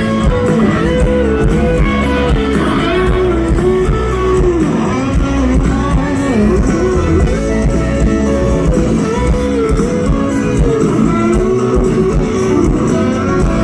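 Music: an instrumental break in a country-pop song, a guitar playing a melodic lead with bending notes over the band.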